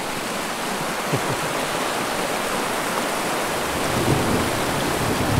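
Fast-running storm runoff after a heavy downpour: a steady, even rush of water.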